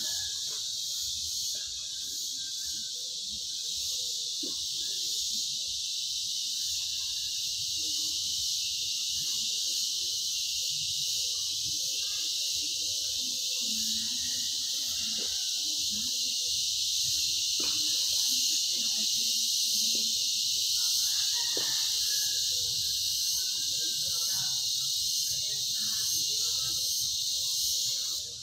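Steady, high-pitched chorus of insects, unbroken for the whole stretch.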